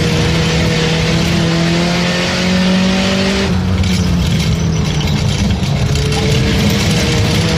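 Race car engine running hard on track, its pitch climbing for about three and a half seconds. The engine note then drops away suddenly and picks up again near the end, over a constant rush of noise.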